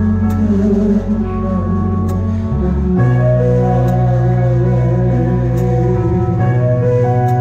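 A live band playing a slow Thai rock ballad, with held chords and a steady bass line that change about every three seconds. The drum kit keeps a light beat, its high cymbal ticks falling roughly every two seconds.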